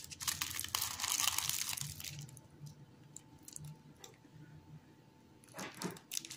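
Crisp, crumbly cinnamon pastry crunching and crackling as it is broken apart by hand in its paper baking cup, with the paper crinkling. The densest crackling fills the first two seconds, with a second short burst near the end.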